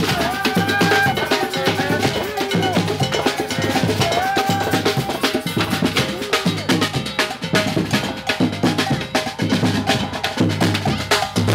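Music driven by drums and percussion, with rapid, dense drum strikes and a bass drum.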